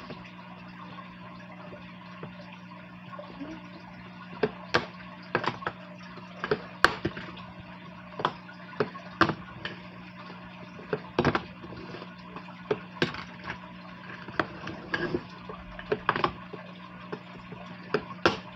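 Wooden fingerboard with bearing wheels clacking sharply and irregularly as it is popped off a tabletop and lands on and against a square metal rail during repeated kickflip 50-50 attempts. Under the clacks runs a steady low hum with a faint water trickle from an aquarium filter.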